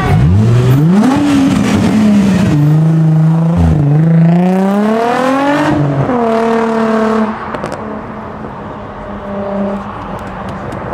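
A modified car's engine accelerating away, its pitch climbing and dropping several times as it revs, then falling sharply about seven seconds in as the car drives off.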